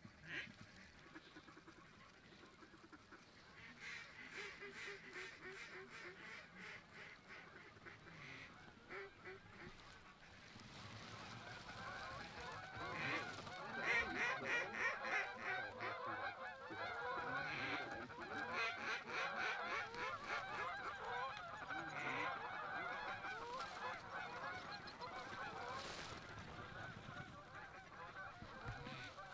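A flock of waterfowl calling, with many calls overlapping. A few rapid calls come first, then the chorus swells and grows louder from about ten seconds in.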